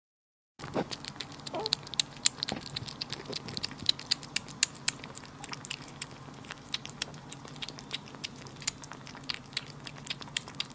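Two kittens eating soft minced raw meat and raw egg yolk from dishes, close-miked: a quick, irregular run of wet licking, smacking and chewing clicks, a few a second. The sound starts about half a second in.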